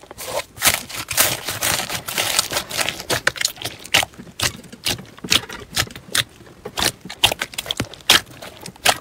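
Slime being pressed and squished by hand in a bowl: a dense run of crackling clicks, then irregular sharp clicks and pops.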